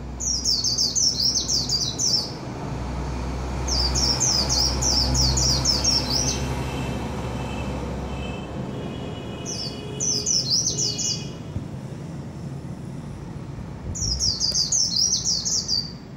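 White-eye (chim khuyên) singing: four bursts of quick, high, falling notes, each lasting about two seconds, with short pauses between them.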